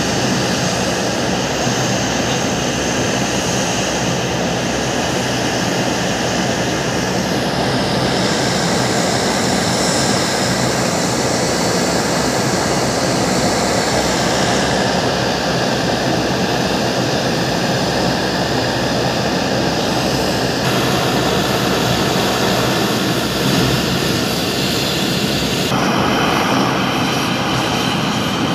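Steady engine noise of airliners taxiing, first jet engines, with abrupt changes where the footage is cut. Near the end it is the turboprop engines of a Dash 8-Q400 taxiing.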